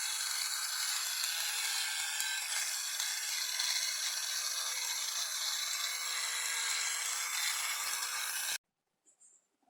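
Steady mechanical whirring and rattling that cuts off suddenly near the end.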